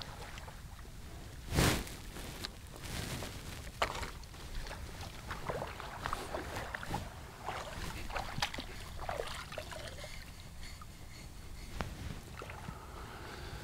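Feet wading through ankle-deep water, making small irregular splashes over a low steady rumble. There is one sharp knock about a second and a half in.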